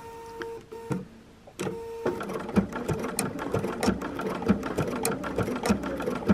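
Sewing machine sewing a blanket stitch around a small raw-edge appliqué shape. It starts and stops twice in the first two seconds, then stitches steadily as a quick run of needle strokes.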